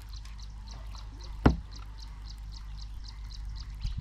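Fast, even insect chirping, about four or five chirps a second, over a low steady hum, with one sharp knock about a second and a half in.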